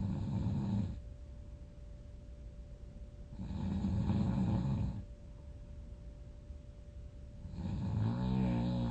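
Loud snoring, three long snores about one every four seconds: one ending about a second in, one in the middle, and one starting near the end.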